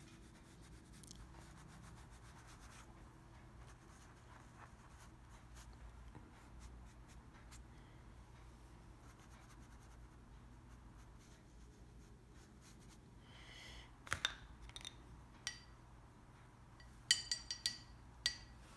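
Soft, faint rubbing of a paintbrush across paper as green paint is blended in a gradation over a painted lotus leaf. Near the end come several sharp, ringing clinks, a few of them in quick succession.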